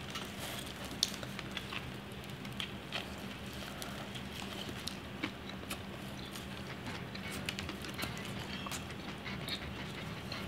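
A person chewing a mouthful of a sub sandwich close to the microphone: soft, irregular smacking and clicking mouth sounds over a low steady hum.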